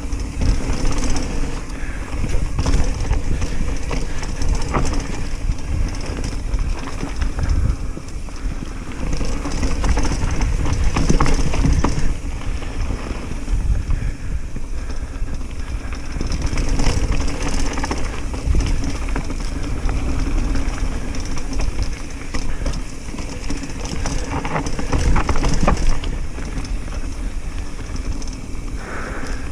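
Commencal Meta Cromoly steel hardtail mountain bike descending a dirt trail: a continuous rumble of tyres rolling over packed dirt and dry leaves, with the bike rattling over bumps.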